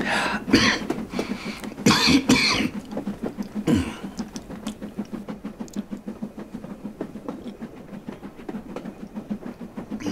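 A man's rough coughs and throat-clearing, three loud bursts in the first four seconds. Under them and after them runs the steady rhythmic clicking and rumble of a railway carriage on the track.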